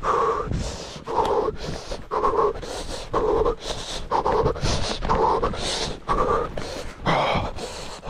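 A man breathing hard, panting in loud breaths about once a second.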